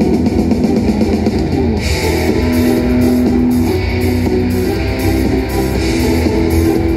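Loud rock music with guitar and a steady drum beat, about two beats a second, accompanying a laser show.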